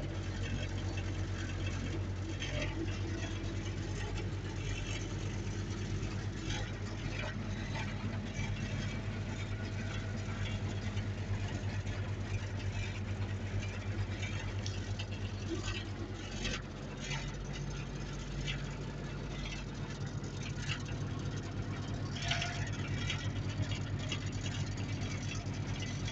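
The diesel engine of a Mertz 3250 floater idling steadily, heard from inside its cab, with scattered light clicks and rattles.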